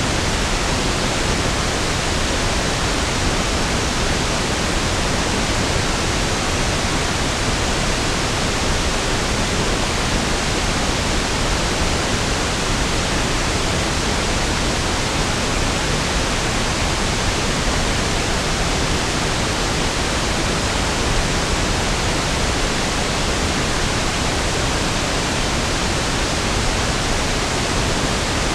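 Steady pink noise: an even, unchanging hiss spread across all pitches, with equal energy per octave, so it sounds smoother and deeper than white noise.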